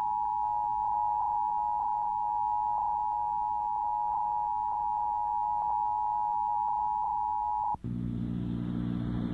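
Emergency Alert System two-tone attention signal off an FM radio broadcast: the 853 Hz and 960 Hz tones sounding together, steady, until they cut off about eight seconds in. A low hum follows for the last second and a half.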